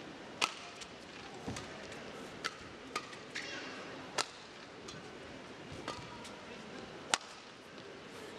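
Badminton rackets striking a shuttlecock back and forth in a rally: about ten sharp hits at irregular intervals, the loudest a little after seven seconds in.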